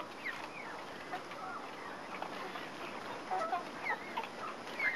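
Chickens clucking: many short, scattered calls over a steady background hiss, growing busier near the end.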